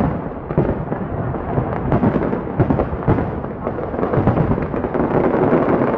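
Fireworks bursting in a dense barrage at close range, several bangs and crackles a second with no break.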